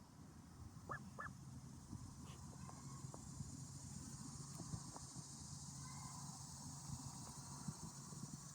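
Pilgrim goose giving two short, soft peeps about a second in, each sweeping quickly up in pitch, with a few faint light taps scattered around them.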